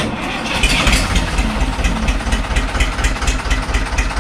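A restored 1992 Escort 335 tractor's two-cylinder diesel engine with a Bosch inline injection pump starts up suddenly and settles into an even running beat. It runs clean, with no extra noises.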